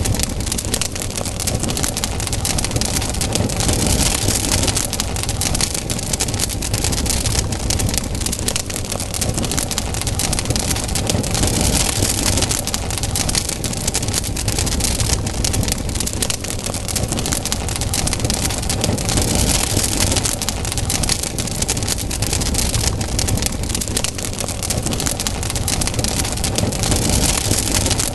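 Campfire burning with a dense, constant crackle of popping wood, and a hiss that swells and fades about every eight seconds.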